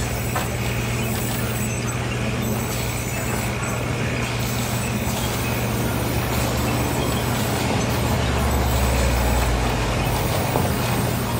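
Large sawmill band saw running with a steady motor hum while a log is fed through the blade. A deeper rumble swells about eight seconds in and fades away near the end.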